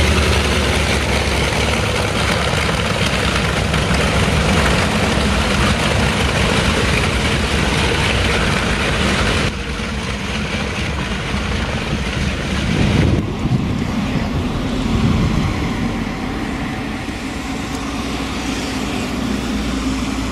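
Lockheed L-1049 Super Constellation's four Wright R-3350 radial piston engines running as the airliner taxis on its propellers, a loud steady drone. The sound drops abruptly about nine seconds in and again a few seconds later, and briefly swells in pitch in between.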